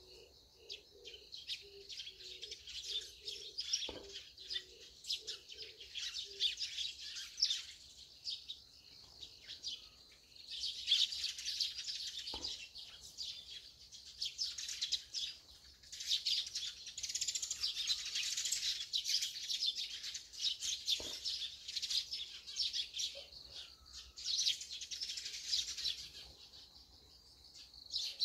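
A flock of Eurasian tree sparrows chattering all at once in the dawn chorus: dense, rapid high chirping in spells, with short lulls about eight seconds in and again near the end.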